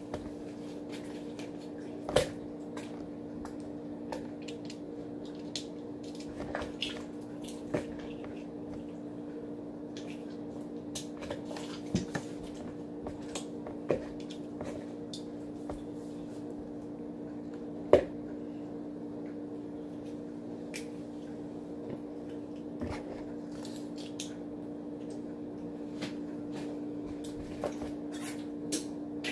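Homemade borax-and-glue slime being mixed and worked in a bowl, with scattered sharp clicks and taps, over a steady low hum.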